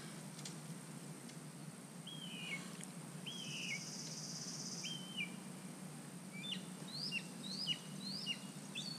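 A bird calling repeatedly in short downward-sliding whistled notes, then faster rising-and-falling notes near the end, over a low steady outdoor hum. A high thin buzz sounds for about a second and a half in the middle.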